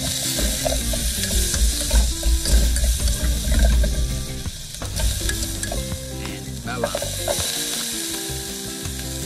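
Chopped garlic and shallots sizzling in a small metal pot on a portable butane stove, with a metal spoon stirring and scraping in the pot.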